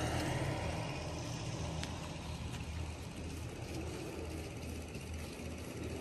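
Engine idling steadily, a low even hum.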